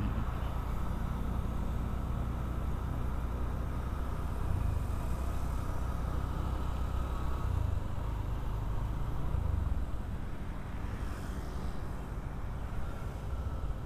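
Motorcycle engine running while riding, with steady road and wind noise. The low engine note eases off about ten seconds in as the bike slows.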